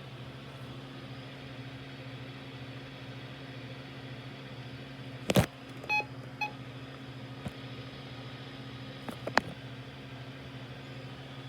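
Dead air on a weather radio broadcast: a steady low hum with no programme, the station knocked off the air after its weekly test. About five seconds in comes a loud click, then two short beeps, and a few fainter clicks follow later.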